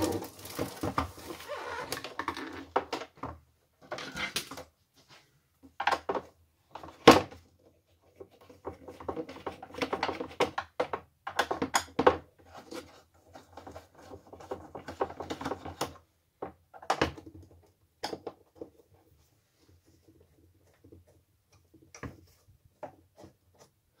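Screwdriver and hands working on a plastic box fan's housing: irregular clicks, knocks and scraping as the screws are taken out, thinning to a few faint ticks near the end.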